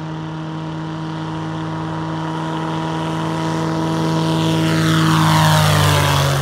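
Light aircraft's Viking 130 engine, a Honda-derived four-cylinder, and propeller at takeoff power during the takeoff roll and climb-out. The steady drone grows louder as the plane comes closer, and its pitch drops as it passes near the end.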